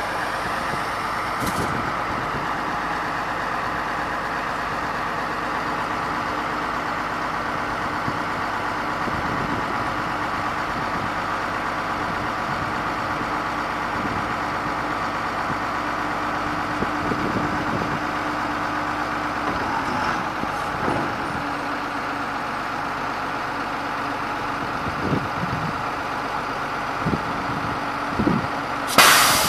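Hyster H280XL forklift running while its mast raises and lowers the forks. A steady whine runs through the middle and stops about two-thirds of the way in. A few clunks come near the end, then a loud, brief hiss right at the end.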